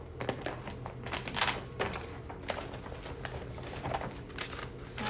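Paper rustling with light taps and clicks as small paper word cutouts are sorted through by hand, over a steady low hum.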